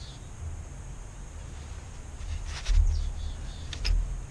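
Sinew lashing cord pulled and drawn tight around a wooden stringer-to-frame joint, giving short scratchy rasps about halfway through and again near the end, with two low thumps as the frame is worked, over a steady low rumble.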